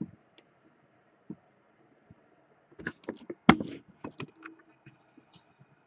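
A flurry of sharp clicks and knocks about three seconds in, the loudest a single hard knock about halfway through, with a few faint scattered clicks before it.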